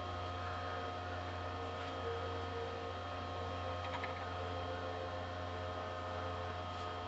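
Treadmill motor driving a bench drill press, running at a steady speed: a constant low hum with several steady, higher whine tones over it.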